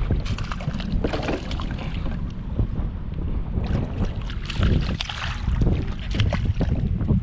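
Wind buffeting the microphone on a kayak at sea, a steady low rumble, with short sharper splashes of water against the hull coming and going every second or so.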